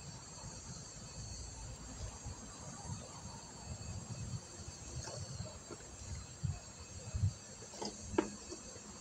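Insects, crickets by their sound, chirring steadily in a high, even tone, over low rumbling on the microphone, with a few short clicks near the end.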